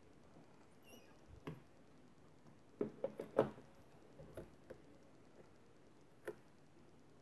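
An ink pad dabbed onto a clear stamp on a stamping tool's acrylic door: scattered light taps and knocks, with a quick cluster about three seconds in and a last tap near the end.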